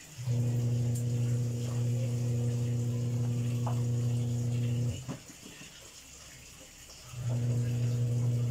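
Steady low electrical hum from the electric cooktop heating a boiling pot. It cuts out a little over halfway through and comes back about two seconds later, as the cooker cycles its power.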